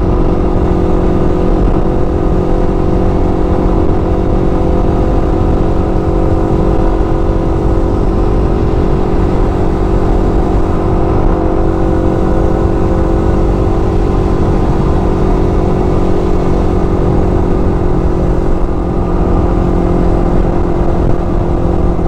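Yamaha R15's single-cylinder engine running at a steady cruising speed, its note holding one even pitch, with wind rumble on the bike-mounted microphone.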